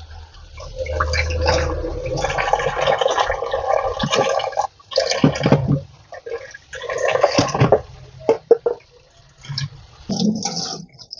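Tap water running into a kitchen sink during dishwashing, coming and going in stretches as items are rinsed, with a few short clinks of dishes and utensils in the second half.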